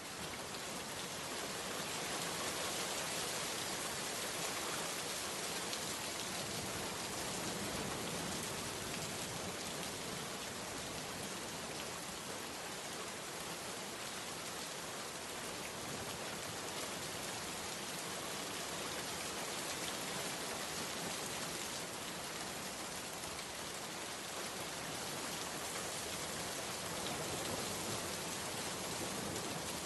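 Steady rain falling, an even dense hiss of countless drops with no single drop standing out. It fades in at the very start, then holds level.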